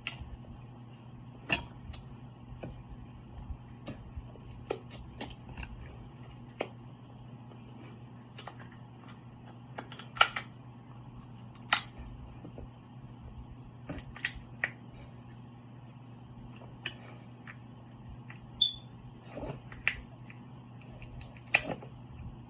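Mukbang eating sounds: a dozen or so sharp, irregular clicks and cracks, typical of seafood shells being broken and of mouth smacks, over a steady low hum.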